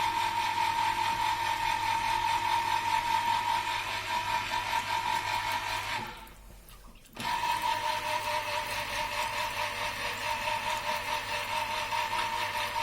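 Electric citrus juicer motor running steadily while an orange half is pressed onto its reamer. It stops about six seconds in and starts again a second later.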